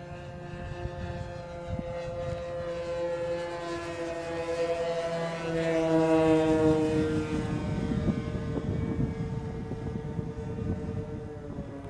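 Twin-engined radio-controlled scale model de Havilland DH.88 Comet flying past: the steady drone of its engines and propellers grows louder to a peak about six seconds in, then drops in pitch as it passes and moves away.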